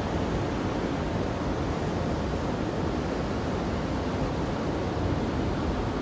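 Ocean surf: waves breaking along the shore in a steady, even rush of noise, with no single crash standing out.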